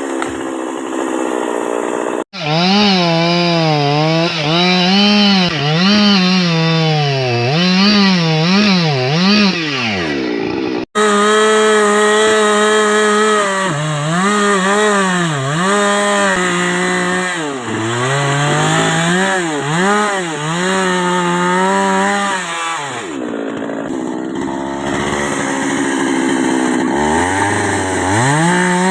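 Two-stroke chainsaw running at high revs while cutting wood, its engine pitch repeatedly dipping and rising again. The sound drops out abruptly twice, about two and eleven seconds in.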